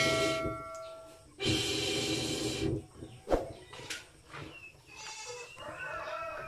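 Two long hissing blasts of air, like breath blown hard through a metal pipe into the wood fire, then a single click; about five seconds in a goat bleats with a wavering call.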